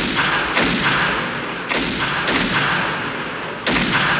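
Water splashing heavily, with sudden loud splashes every second or so and a continuous hiss of churning water between them.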